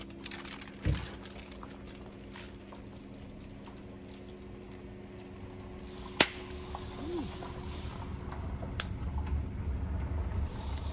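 Foil-wrapped fish set down on the grate of a small portable charcoal grill: one sharp knock about six seconds in and a lighter click near nine seconds, over a faint steady hum and low outdoor background.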